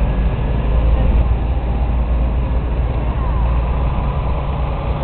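Farm tractor engines running with a steady low rumble.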